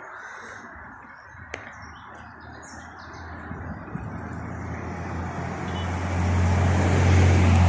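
Street traffic noise with a heavy motor vehicle's engine drawing near, its low steady hum growing louder through the second half until it is the loudest sound. Birds chirp faintly and there is a single sharp click in the first couple of seconds.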